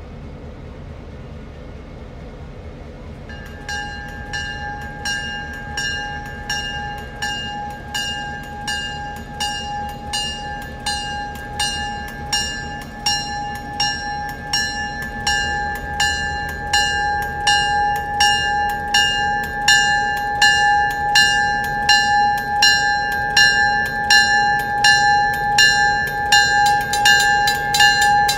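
A railroad bell starts ringing a few seconds in, with evenly spaced strikes a little under twice a second, growing louder as a diesel locomotive approaches the crossing with a low rumble. Near the end a second, faster ringing joins.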